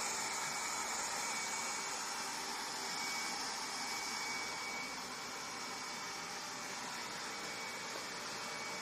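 Robot vacuum cleaner running: a steady whir of its suction fan and brushes, with a faint high whine that comes and goes.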